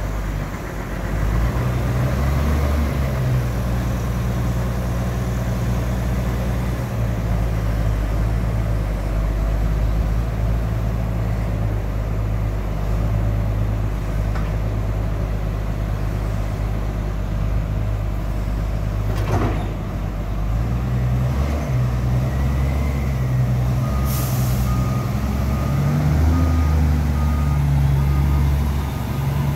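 Container reach stacker's diesel engine running under load, its speed rising and falling as the hydraulic boom lifts and sets a container on a stack. A sharp burst sounds about 19 seconds in, a short air hiss follows a few seconds later, and a reversing alarm beeps steadily near the end.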